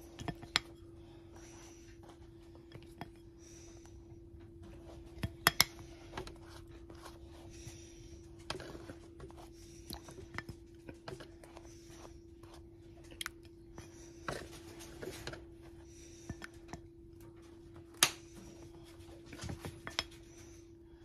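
A spreader scraping and clicking against a ceramic bowl while stirring seasoned melted butter, with a few sharp clinks scattered through, over a steady low hum.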